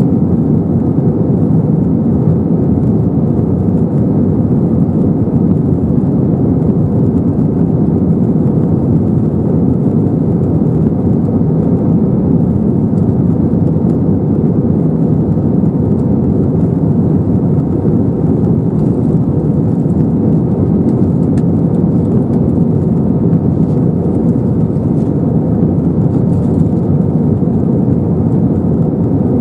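Steady cabin noise in an Airbus A321-212 in flight, heard from a window seat over the wing: its CFM56 turbofan engines and the rushing air, strongest in the low range. It holds even throughout with no changes.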